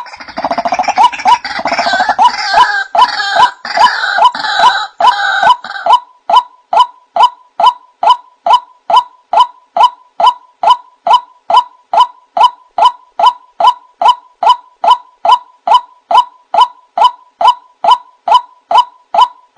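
White-breasted waterhen calls played as a lure: a short 'wak' note repeated very evenly, about two and a half times a second. For the first six seconds a harsher, jumbled chorus of croaking calls runs over it.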